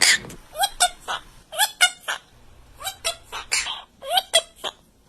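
Pet bird making a series of short, rising chirps, often in quick pairs, about a dozen in all.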